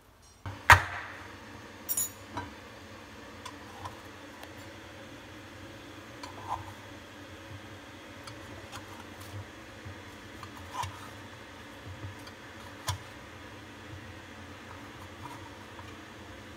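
Metal muffin tin set down on a countertop with one sharp clank less than a second in, then scattered light clicks and knocks as the baked cheesecakes are lifted out of the tin and set on a wooden board, over a steady low hum.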